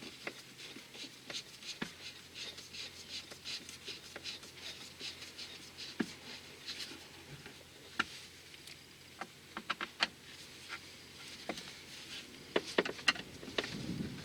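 A run of light clicks, taps and rattles, the kind made by handling small tools and plastic or metal parts, dense at first and then scattered, with a few sharper knocks near the end.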